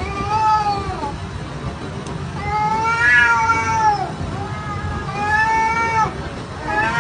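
A small tabby-and-white cat meowing in four long, drawn-out cries, each rising and then falling in pitch, as a golden retriever holds it by the back with its mouth.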